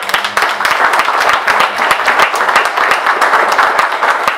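An audience applauding: many hands clapping in a steady round.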